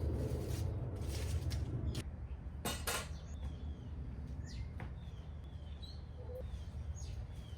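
Small birds chirping in short falling notes over a low steady rumble, with a few sharp clicks, two close together about three seconds in.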